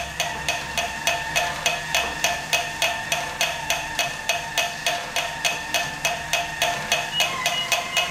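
SC916 StairClimber's step mechanism running at about 48 steps per minute, with a fast, even clicking, about three clicks a second, over a steady motor whine. This clicking is the stair climber's fault noise, which the owner thinks comes from somewhere in a hub of the step assembly.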